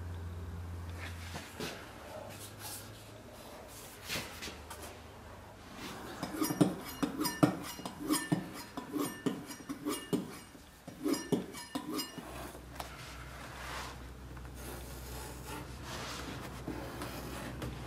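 Hand tools working leather on a wooden workbench. A knife is drawn along a paper pattern. In the middle comes a quick run of scraping strokes and knocks from a wooden block, and near the end a rounded tool rubs over the leather.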